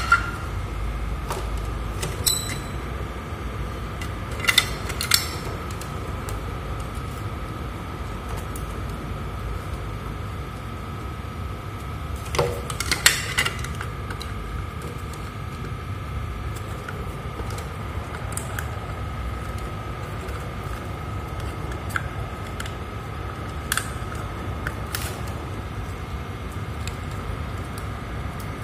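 Scattered clicks and knocks of small plastic electrical parts being handled as wire connectors are fitted to a digital freezer controller, heaviest about halfway through. Under them runs a steady low hum with a faint high steady whine.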